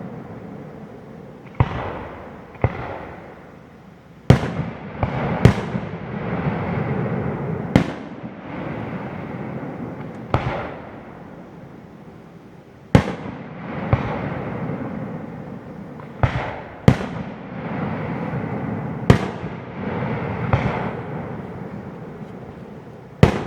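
Aerial firework shells bursting in a display: about a dozen sharp booms at uneven gaps of one to three seconds, sometimes two close together, each trailing off in a rolling rumble.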